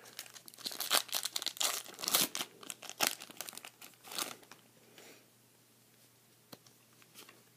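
Foil Pokémon trading card booster pack being torn open and crinkled, the wrapper crackling in a quick run of sharp bursts for about four seconds, then only a few faint clicks.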